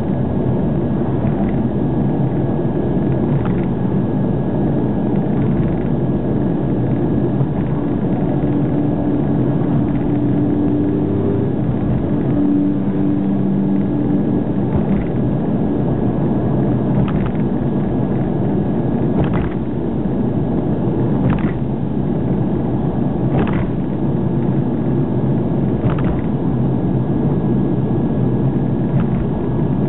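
Steady road and engine noise of a car driving on an expressway, heard inside the cabin. An engine hum stands out for a few seconds around the middle, and a few faint clicks come in the second half.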